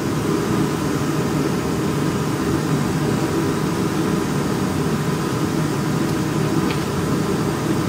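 Steady mechanical hum and whir of a running machine, even throughout with no starts or stops.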